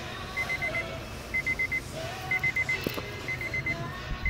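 1999 Honda CR-V's dashboard warning chime beeping in quick groups of four, about one group a second, with a few faint handling clicks under it.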